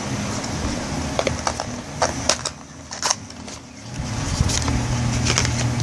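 Small product package opened by hand: a scattering of short clicks and crinkles of packaging, over a steady low hum.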